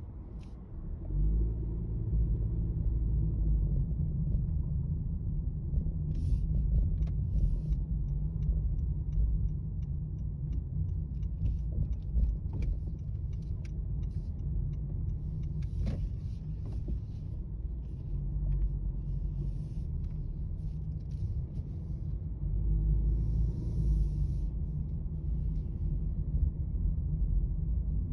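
Steady low rumble of road traffic, with scattered light clicks and taps over it.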